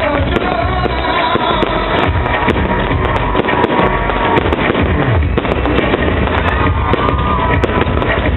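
Loud amplified pop music at a live concert, recorded from the audience, with many sharp crackling clicks running through it.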